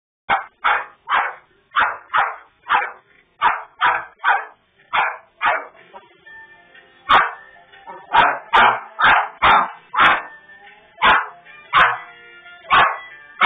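A dog barking repeatedly at a portable air compressor, about two sharp barks a second. The barking stops for a second or so midway, then starts again.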